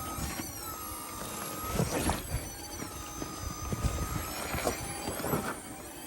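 Jeep Wrangler 4xe's electric drive motor whining with no engine exhaust, its pitch sliding up and down twice as the throttle changes. Underneath it are a low rumble and a few knocks from the tyres and suspension on rough ground.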